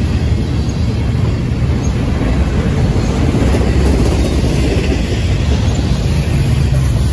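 Double-stack intermodal freight train's container well cars rolling past: a steady, loud rumble of steel wheels on the rails.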